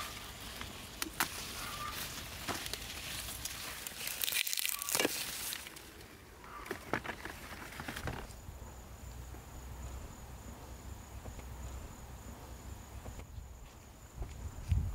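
Rustling and crackling with sharp snaps and clicks, like plants being handled, for about the first half. After that a steady high-pitched insect call rings on over a faint low rumble.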